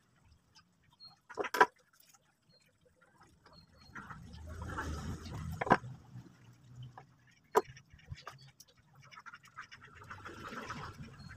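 Hands working small wires and a metal DC barrel jack with needle-nose pliers: three sharp clicks of metal on metal, with light rustling and handling in between.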